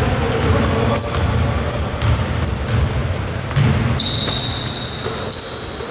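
Basketball being dribbled on a hardwood-style indoor court, with sneakers squeaking on the polished floor as players move into position.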